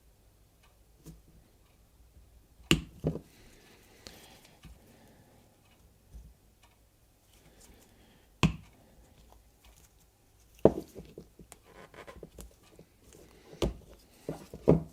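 Knife blade point prying and scraping at a plastic bicycle pedal end cap: irregular small clicks and scrapes, with a few sharper clicks spread through.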